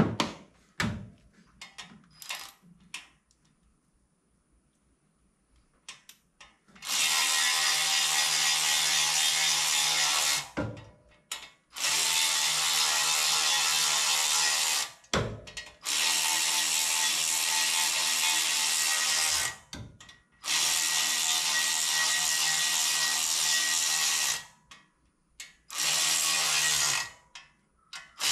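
A few scattered ratchet-like clicks, then a power tool running in long even bursts of about three to four seconds each, four in a row and a shorter one near the end, as bolts are run on engine work.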